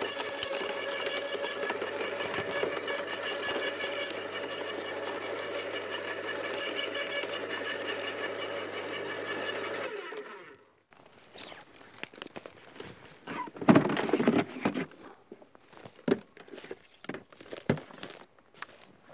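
Electric turbine-cut garden chipper's motor running with a steady even hum, then switched off suddenly about ten seconds in. After that comes irregular plastic clattering and rustling as the chipper's collection box, full of wood chips, is handled and pulled out.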